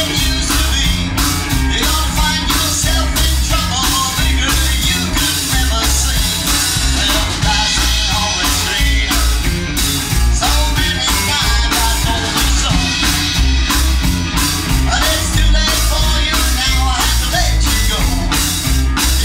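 Rockabilly-style rock and roll song with a steady drum beat and a singing voice.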